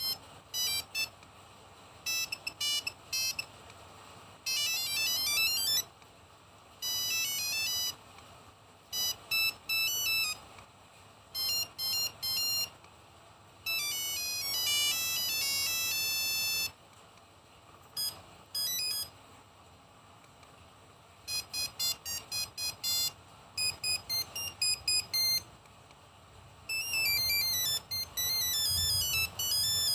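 Nokia 1108 phone playing its built-in monophonic ringtones through its small speaker. Bright single-note beeping tunes and quick runs play one after another, with short pauses between them.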